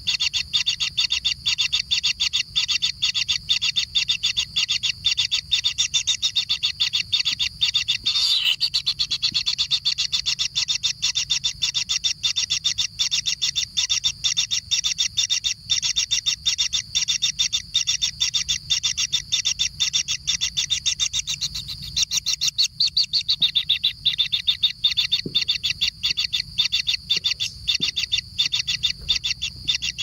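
Kingfisher nestlings calling without a break, a fast, even run of high calls at about four or five a second: begging for food. A single sharp click comes about eight seconds in.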